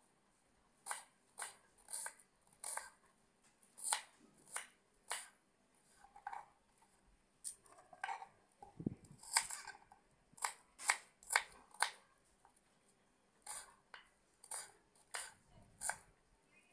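Kitchen knife chopping onion on a wooden chopping board: irregular sharp knocks of the blade on the board, about one or two a second with some quick runs, and one duller thump a little past halfway.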